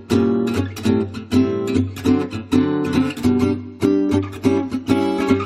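Background music: strummed acoustic guitar chords in a steady, upbeat rhythm.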